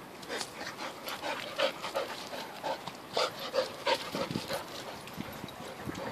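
Border collie panting hard with short whines mixed in, a quick irregular run of sounds that eases off about four and a half seconds in.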